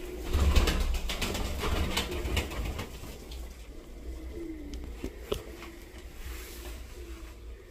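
Pigeons cooing, low wavering coos coming now and then, with a low rumble and sharp clicks in the first couple of seconds.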